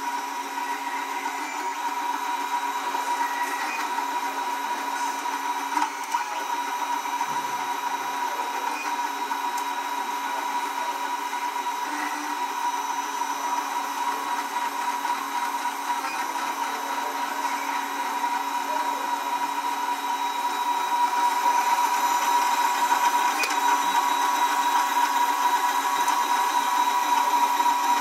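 Old MakerBot 3D printer at work, its stepper motors whirring and buzzing steadily with a constant high whine, heard as a playback recording. It gets a little louder in the last few seconds.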